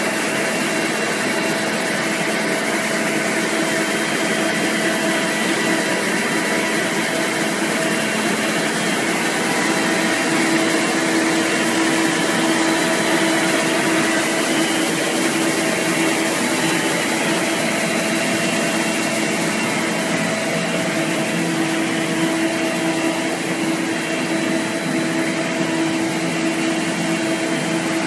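Polystyrene foam sheet extrusion line running: a steady, even machine drone with a few held tones over a constant hiss.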